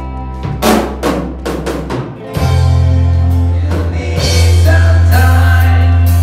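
Live rock band jamming: drum kit hits and fills, then the bass guitar comes in on a held low note under guitar, and a singing voice joins a little past halfway.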